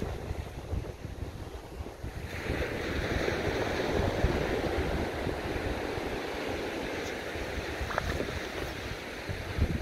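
Small waves washing up onto a sandy shore, with wind buffeting the microphone. A louder wash of surf swells in about two seconds in and carries on.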